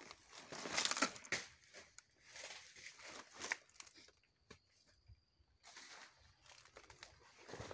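Faint, intermittent rustling and crackling of dry leaves and plant stalks being brushed and stepped through, loudest about a second in, with a near-silent lull past the middle.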